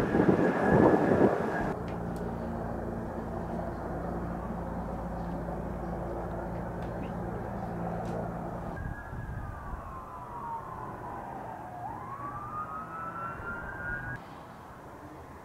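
Helicopter rotor noise for the first second or so, then a steady low engine hum. About nine seconds in an emergency-vehicle siren comes in with one slow wail, falling and then rising again, and it cuts off suddenly near the end.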